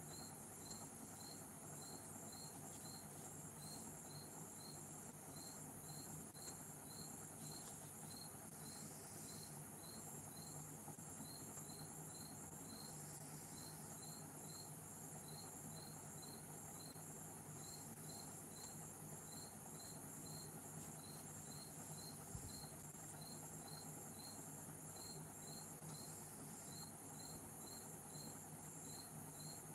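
A cricket chirping steadily, about two short high chirps a second with a few brief pauses, over a faint low hum.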